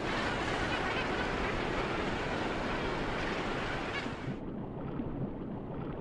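Surf breaking and water churning, a steady full rush of noise. About four seconds in, it suddenly turns muffled and dull, as heard from underwater.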